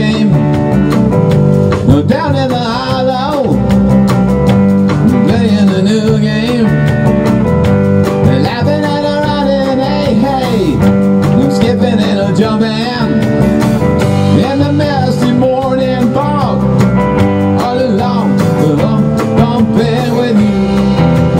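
A rock band playing live: electric guitar over a drum kit, with a steady beat and a melody that bends up and down in pitch on top.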